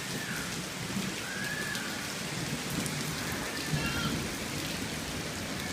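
Steady rain falling and pattering on surfaces, with a few faint thin whistle-like notes gliding over it.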